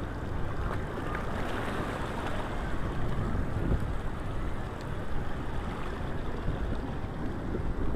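Wind blowing across the microphone over the steady wash of waves and churning water.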